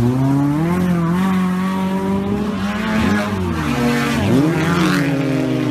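Off-road vehicle's engine revving hard under load: its pitch climbs steeply at the start, holds high, then drops and picks up again twice around the middle before settling at a steady high rev.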